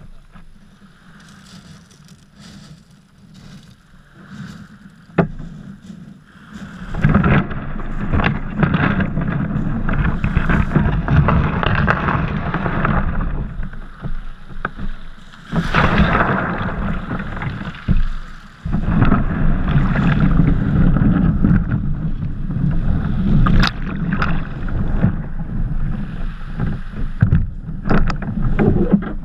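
Small waves washing and draining over a shingle beach around a sea kayak at the water's edge, with wind rumbling on the microphone and scattered knocks and clatters of the boat and pebbles. It is fairly quiet at first and grows much louder about seven seconds in.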